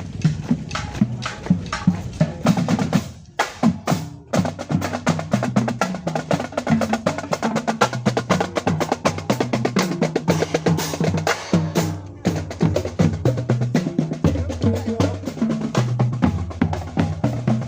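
Fast percussion-driven music: rapid drum and wood-block-like hits over a moving bass line, with a brief drop about three seconds in.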